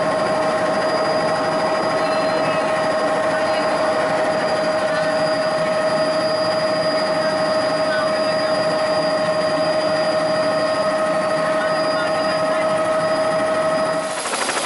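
Helicopter turbine engine and rotor running with a steady high whine, heard from inside the cabin. Near the end it cuts to a rougher, noisier sound.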